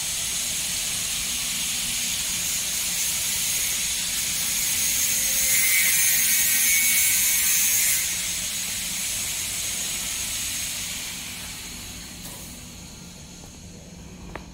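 Steady hissing of water jetting through the stainless-steel intestine casing cleaning line's pipes and troughs, swelling a few seconds in and fading down toward the end.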